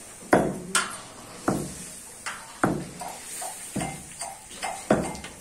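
Metal pestle pounding baked baati in a metal pot to crush them into malida (churma): a run of sharp metallic strikes, about eight of them at uneven spacing, each ringing briefly.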